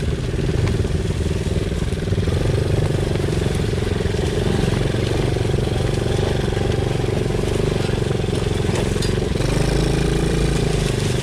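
Small ATV engine running steadily at part throttle as the quad rides along a dirt trail, its pitch shifting slightly near the end.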